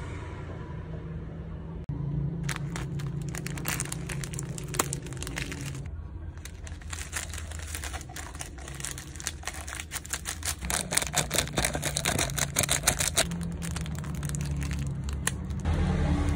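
Plastic snack packaging crinkling as it is handled, in dense crackly rustles that start about two seconds in, pause briefly around six seconds, and die down near the end.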